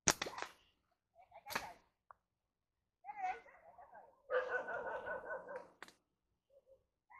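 Frameless slingshot fired: the flat rubber bands snap on release with a sharp crack. A second sharp crack follows about a second and a half later. A dog barks and whines about three seconds in and again for a longer stretch a little later.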